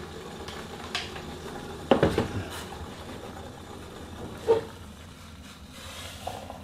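Metal camping pot clattering against its stove stand about two seconds in and knocking again a couple of seconds later as it is handled and lifted off. Near the end, hot water is being poured into a mug.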